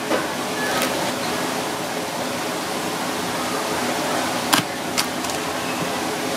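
A large knife cracking through the shell of a cooked spanner crab: three short, sharp cracks, the loudest a little past the middle, over a steady background hiss.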